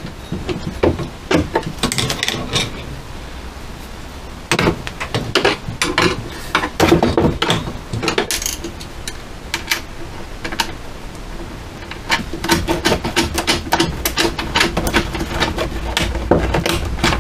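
Nuts and bolts being fitted and tightened by hand on a cyclekart's metal nose-cone mounting brackets: irregular metallic clicks, clinks and taps of hardware and tools, coming thicker and faster over the last few seconds.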